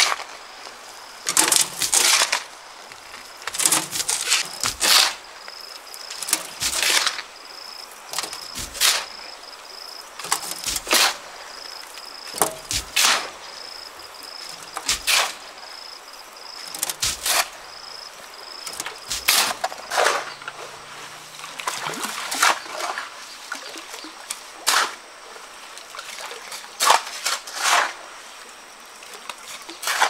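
Shovel scraping and scooping sand and gravel off a truck's steel bed, one short gritty scrape every second or two.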